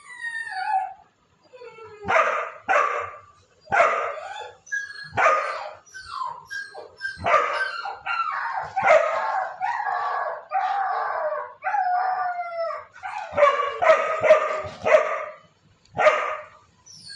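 A dog barking and howling: a run of sharp barks, drawn-out wavering howls in the middle, then more barks near the end.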